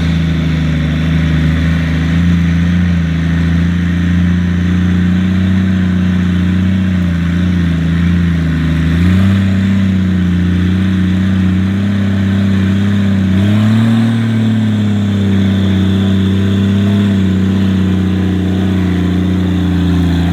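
A 4x4 off-road vehicle's engine running steadily under load, with its pitch stepping up twice, about halfway through and again a few seconds later.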